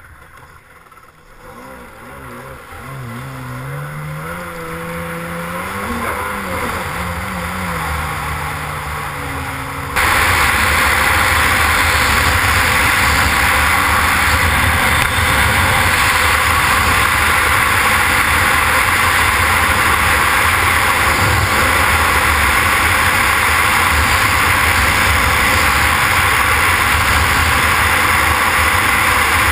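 Yamaha SuperJet stand-up jet ski engine running, its pitch rising and falling as the ski gets under way. About ten seconds in the sound jumps suddenly to a loud, steady rush of engine and wind as the ski runs at speed.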